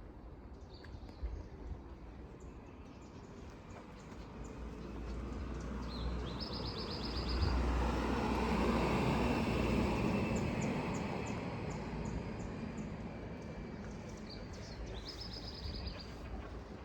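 A vehicle passing by, its engine and tyre noise swelling to a peak about halfway through and fading again, while a small bird gives a quick high trill twice, about six seconds in and near the end.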